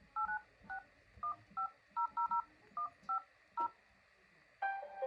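Phone keypad dialing tones: about eleven short two-note touch-tone beeps at an uneven pace, as a number is keyed in. Near the end a ringtone melody begins.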